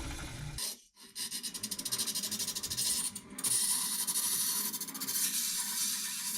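Steel knife blade rasping against the spinning abrasive wheel of a restored hand-crank grinder, a steady scraping hiss that breaks off briefly about a second in and again near the middle.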